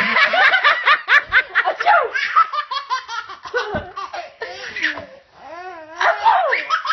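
Baby laughing hard in quick repeated bursts, with a short lull about five seconds in before the laughter picks up again.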